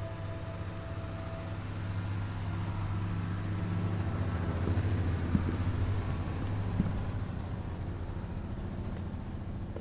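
A low steady rumble that swells in the middle, with two short sharp clicks about a second and a half apart.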